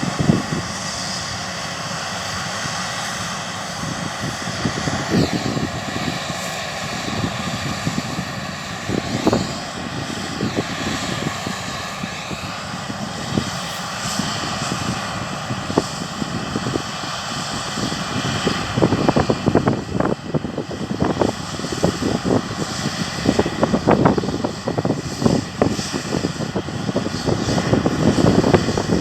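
Steady drone of harvest machinery engines working the field, the engine tones bending in pitch for a few seconds midway. In the second half, wind gusts buffet the microphone.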